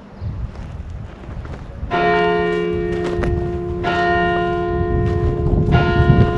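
A church bell struck three times, about two seconds apart, each stroke ringing on until the next, with wind rumbling on the microphone underneath.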